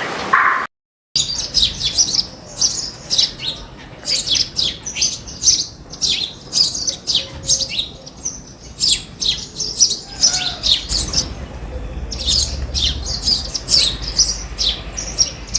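Small birds chirping in quick succession, many short high chirps overlapping one another, after a brief silent break about a second in.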